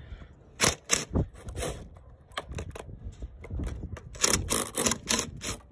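Cordless impact wrench with a universal socket working the spindle bolts on a steel mower deck: a string of sharp, irregular metallic clicks and knocks, thickest about four to five seconds in.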